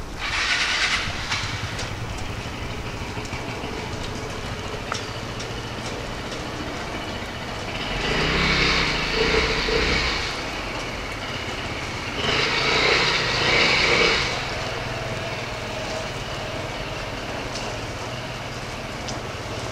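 Street traffic under a steady low hum. Vehicles pass twice, about eight and twelve seconds in, each a couple of seconds of rushing tyre noise on the snowy road.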